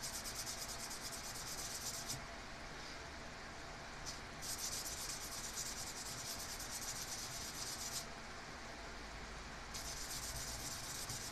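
Fast back-and-forth scrubbing with an abrasive on the contact surface of a 1976 Chevy Blazer's horn button, cleaning the switch contacts. It comes in three bouts: one ending about two seconds in, a longer one in the middle, and a third starting near the end.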